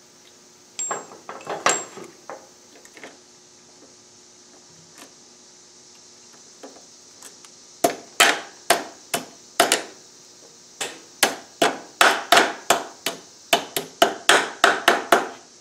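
Pliers working a cotter pin into a motorcycle's rear axle nut. A few light metal clinks come about a second in, then from about eight seconds in a long run of sharp metallic taps, two or three a second.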